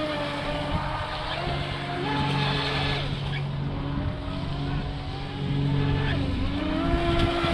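Brushless motor of a WL916 Swordfish 3S RC boat whining as the boat runs at speed across the water. Its pitch dips about six seconds in and climbs again near the end.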